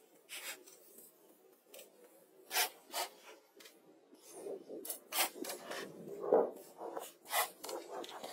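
A series of short, dry scrapes and rubs, sparse at first and coming thicker in the second half.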